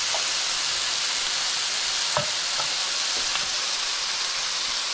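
Seasoned oxtail frying in hot oil in a pot, browning: a steady sizzle, with a couple of faint ticks about two seconds in.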